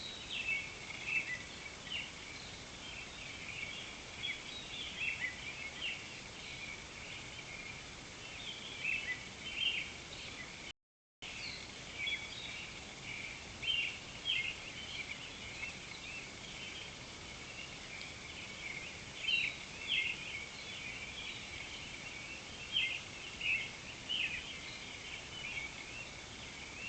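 Outdoor chorus of many birds chirping in short, quick calls over a steady high-pitched background hiss. The sound cuts out completely for a moment about eleven seconds in.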